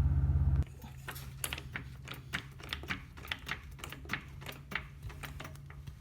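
A car engine's steady low idle hum that stops abruptly about half a second in, followed by a quieter run of irregular light clicks and ticks, several a second.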